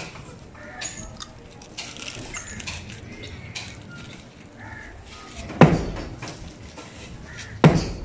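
Sledgehammer striking a concrete-block wall during demolition: two heavy blows about two seconds apart in the second half, with lighter knocks before them.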